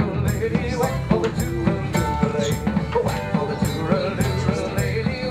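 Background music with a steady drum beat, about three strikes a second, under a melody.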